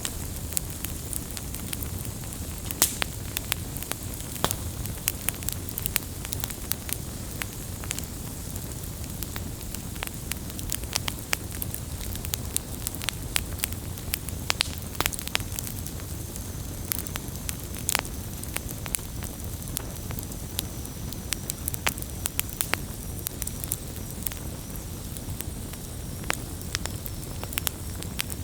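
Wood campfire crackling: frequent sharp pops and snaps of burning wood over a low, steady rumble of the flames.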